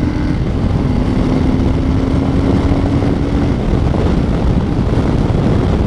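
Harley-Davidson Low Rider S's Milwaukee-Eight 114 V-twin running hard under throttle at highway speed, mixed with heavy wind rush. A steady hum under the noise cuts off about three and a half seconds in.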